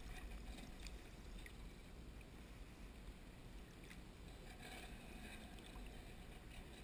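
Faint, steady low hum of a motorboat's engine idling in the distance, with slight water sounds close by.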